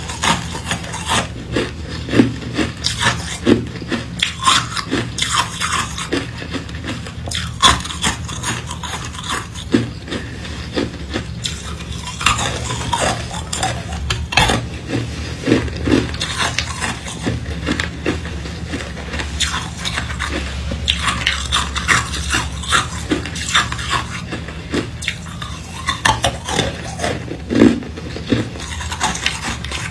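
Hard, hollow cylindrical ice cubes being bitten and crunched close to the microphone: a fast, irregular run of sharp cracks and crunches. Ice clinks in the bowl as pieces are picked out, over a steady low hum.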